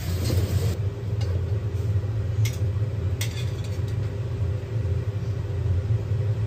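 Steady low rumble of a kitchen range hood fan running over the gas stove, with a few light clinks of a metal spatula on the wok and plate as the fried egg is served.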